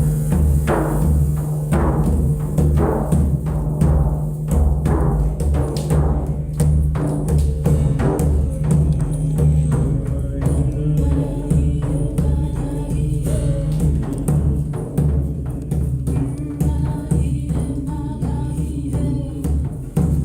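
Music led by deep drums beating a steady repeating rhythm, over sustained low notes.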